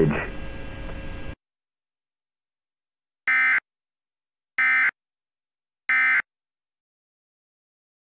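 Emergency Alert System end-of-message data bursts: three short, identical buzzy, high-pitched digital chirps about 1.3 seconds apart, marking the end of the alert. Before them, a steady hiss cuts off suddenly about a second in.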